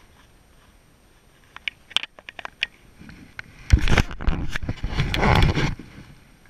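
A hooked fish splashing at the surface beside the boat, about two seconds of loud splashing a little past the middle, preceded by a few light clicks of the fly line being handled.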